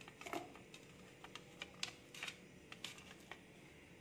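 Faint, scattered light clicks and taps, about a dozen over four seconds: small onions (shallots) being dropped into a stainless steel mixer jar.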